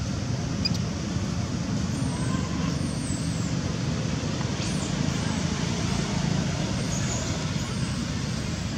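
Steady low background rumble, even throughout, with a few faint high chirps.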